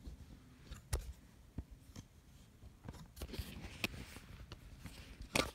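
Small objects being handled: a few scattered clicks and light knocks, with a short rustle a little past halfway and the loudest click near the end.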